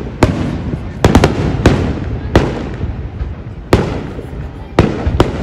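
Aerial fireworks shells bursting overhead: about nine sharp bangs at irregular spacing, three of them in a quick cluster about a second in, each followed by a rumbling echo.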